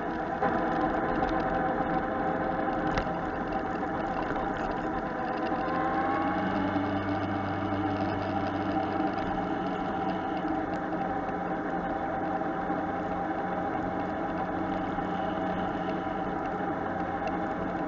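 Motorcycle engine running as the bike rides along, heard through the bike-mounted camera; the engine note rises a little about six seconds in.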